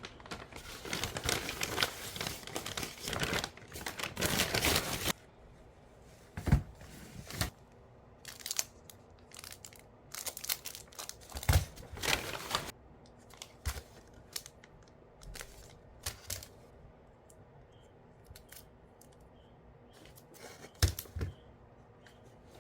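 Crinkly wrapping being torn and crumpled by hand, dense for about the first five seconds, followed by scattered light taps, clicks and rustles of handling.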